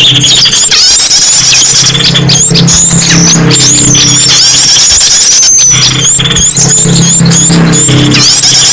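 Bird-lure recording of many small songbirds of mixed species chirping, trilling and whistling over one another in a dense, noisy chorus. A low drone comes and goes underneath.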